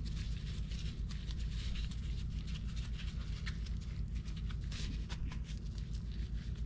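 Gloved hands pressing and packing damp shredded cardboard and sawdust spawn into a plastic flowerpot mould: soft, irregular rustling and crackling over a steady low hum.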